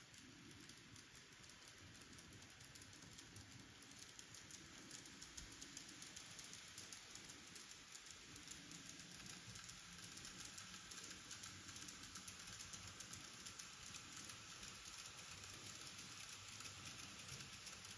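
Model D51 steam locomotive and freight cars running along the layout track: a faint, rapid, patter-like clicking and rattling of the small wheels on the rails, getting a little louder a few seconds in.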